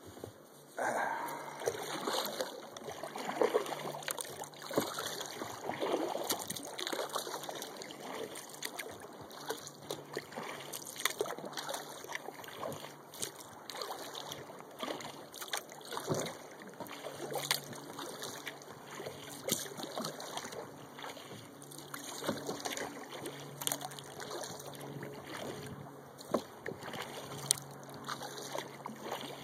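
Water splashing and trickling around a kayak being paddled: irregular small splashes and drips from the paddle blades and water lapping at the hull, a little louder in the first several seconds.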